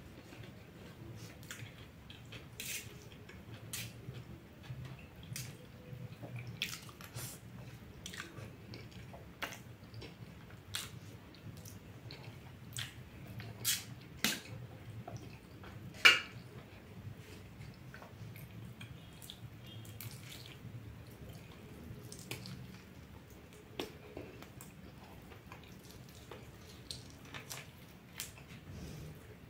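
Close-up eating sounds: wet chewing and lip smacks over noodles and goat meat, with irregular sharp clicks, one much louder about halfway through.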